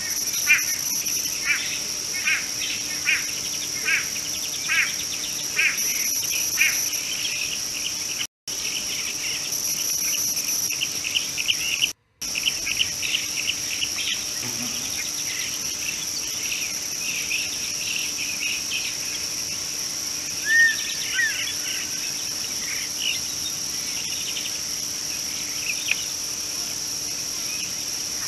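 Steady high-pitched drone of insects, with a bird repeating short chirping notes over it, about one or two a second for the first half and more scattered after, and a single short rising-and-falling whistle about twenty seconds in. The sound cuts out completely for a moment twice, about eight and twelve seconds in.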